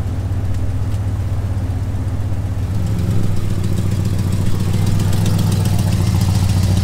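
Ford F-250 pickup truck's engine running steadily, its note stepping up slightly and getting a little louder about three seconds in.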